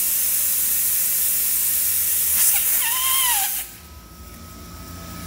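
Compressed air hissing out of the central tire inflation fitting at the wheel hub of an M923A2 5-ton 6x6 truck. A brief wavering whistle rises over the hiss near the end and drops in pitch, then the hiss cuts off suddenly about three and a half seconds in.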